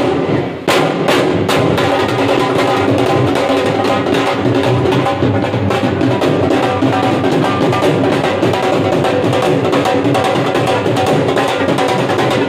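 Punjabi dhol drums played fast and loud, a dense rhythm of sharp stick strokes over deeper booming beats. The playing breaks off for a moment about half a second in, then comes back in with sharp accented strokes.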